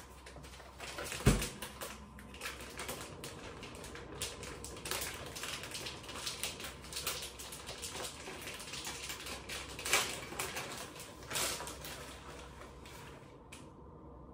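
A fridge door thuds shut about a second in, then a plastic bag of grated cheese crinkles and crackles steadily as it is handled, with a couple of louder crackles near the end.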